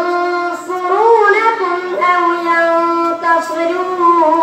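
A young boy reciting the Quran in a melodic chant into a microphone, drawing out long held notes that bend and ornament in pitch with hardly a break.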